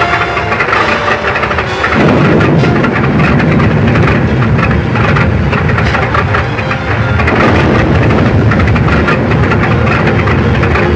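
Airplane engine starting up with a sudden loud rumble about two seconds in, then running steadily at high power.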